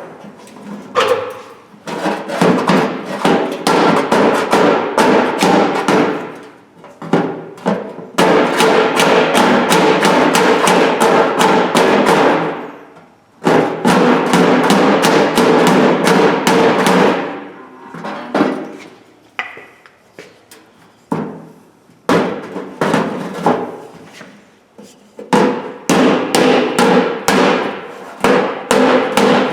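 Rapid hammer taps on the steel of a Craftsman toolbox, the metal ringing, in runs of several seconds broken by short pauses.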